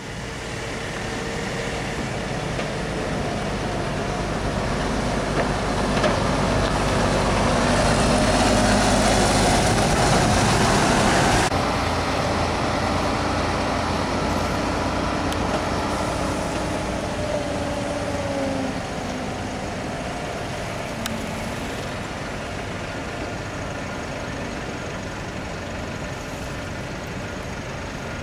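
MAN TGA 18.530 truck under way, its diesel engine swelling to a peak about ten seconds in. The sound then drops off sharply and eases away slowly.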